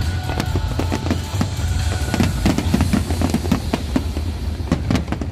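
Rapid barrage of aerial firework shells bursting, many irregular overlapping bangs and crackles over a continuous low rumble.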